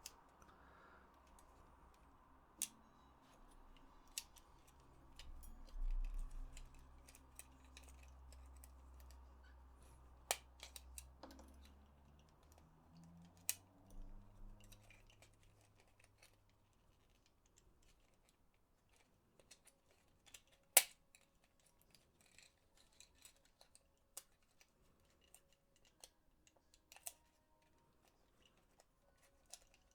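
Scattered small clicks and taps of plastic PS4 controller parts being handled and fitted together, the sharpest about 21 seconds in. A low hum runs through the first half and fades out around 15 seconds in.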